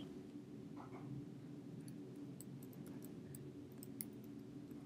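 Faint, scattered keystrokes on a computer keyboard as a terminal command is typed, over a steady low room hum.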